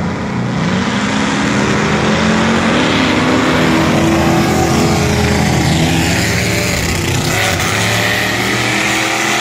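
Drag-racing cars making a full-throttle pass down the strip, their engines running hard with the pitch climbing and dropping through the gears.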